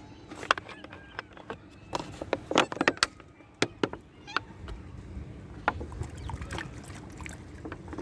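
Irregular sharp clicks and light knocks, a few a second, over a low steady background.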